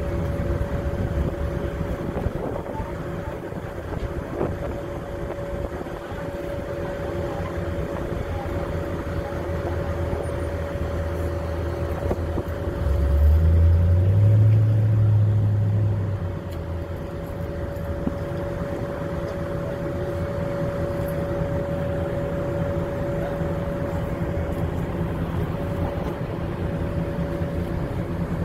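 A bus engine idling, with a steady whine over a low rumble. About halfway through, a deeper hum swells for some three seconds, stepping up in pitch, then drops back.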